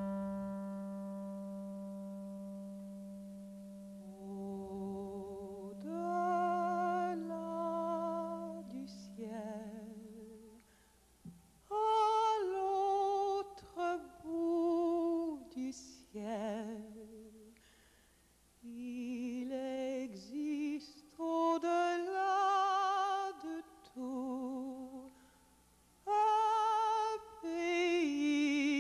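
A clarinet's held note dies away in the first second, over a low sustained tone. From about six seconds a woman's voice sings a slow melody in short phrases with vibrato, nearly unaccompanied.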